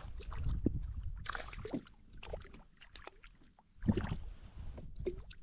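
A small bass being landed on a kayak: splashing at the surface and a run of knocks and rustles against the boat. The two loudest splashes come about a second in and again near four seconds.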